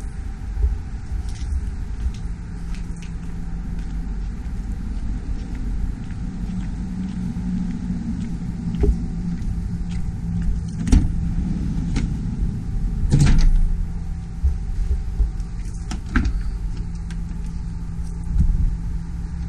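Steady low rumble with a few clicks and clunks near the middle as the Volkswagen Transporter panel van's doors and handles are worked; the loudest clunk comes about two-thirds of the way through.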